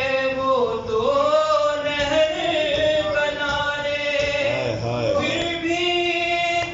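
Male voice chanting a nauha, a Shia mourning lament, unaccompanied, holding long drawn-out notes with slow melodic turns.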